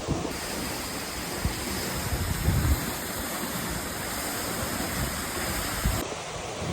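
Steady rushing of a waterfall, with wind buffeting the microphone in low gusts. The hiss turns brighter just after the start and duller again near the end.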